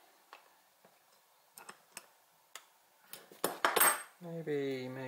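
Small plastic clicks from the toothbrush handle and head being worked together, then a louder cluster of metallic clinks about three and a half seconds in as the adjustable spanner is handled and set down on the mat. A short hum of voice comes near the end.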